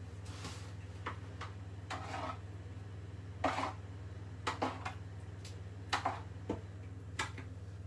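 A metal spoon clinking and scraping in a roasting tin as pan juices are spooned over a roast chicken, in several separate strokes, over a steady low hum.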